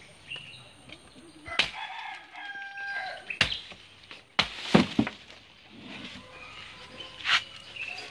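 A machete chops several times through the stalk of a banana bunch, sharp strokes with the loudest about five seconds in. A rooster crows once about two seconds in.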